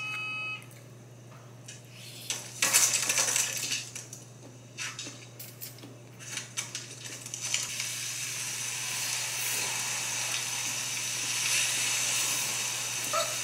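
Fork clinking and scraping against a ceramic plate of spaghetti, then a long slurp of noodles: a soft, hissing suck that starts about halfway through and holds for several seconds.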